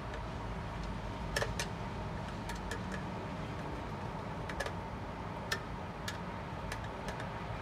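Scattered small plastic clicks and taps from handling a PID temperature controller's wiring socket and its wires, over a steady low hum.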